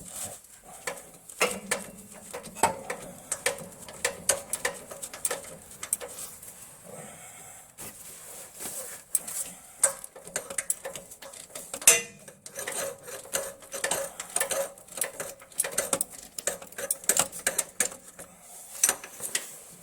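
Old Craftsman swivel-head hand ratchet clicking in short irregular runs as a bolt is turned, with the clink of metal tools against the suspension; a sharper metallic hit about twelve seconds in.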